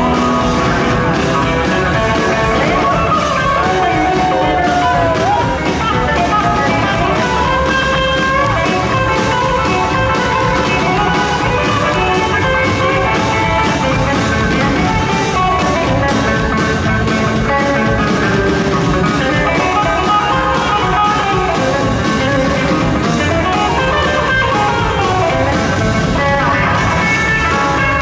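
Live rockabilly band playing an instrumental stretch: a hollow-body electric guitar plays lead lines with bent notes over upright bass and drums.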